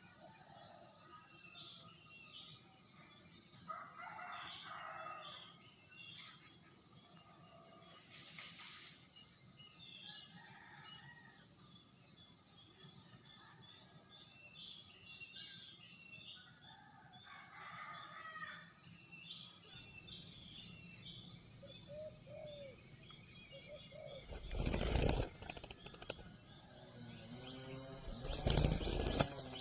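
A steady high-pitched insect drone with scattered short bird calls over it. Near the end come two loud rustling bursts a few seconds apart.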